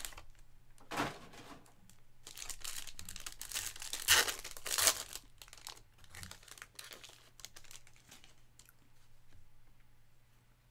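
A sealed box of trading cards is opened by hand and its foil pack wrapper torn and crinkled. The sound is a run of rustling and tearing, loudest about four to five seconds in, then softer crinkles as the cards come out.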